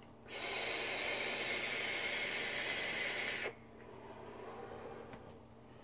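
A long draw on a DotMod Petri RTA vape tank: air hissing steadily through the atomiser with a thin high whistle for about three seconds, cut off sharply. It is followed by a softer, breathy exhale of vapour.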